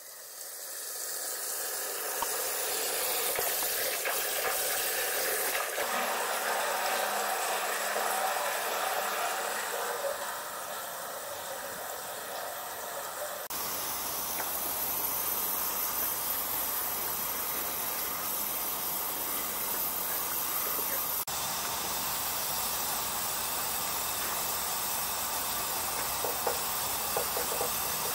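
Steady hiss of steam from a 1916 Ransomes, Sims & Jefferies traction engine under steam. It fades up over the first couple of seconds and changes abruptly in tone about halfway through and again about three-quarters through.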